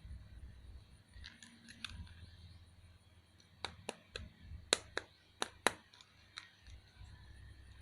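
Sharp plastic clicks and snaps, about seven in quick succession in the middle, over low rustling and handling noise, from toy figures or their packaging being handled.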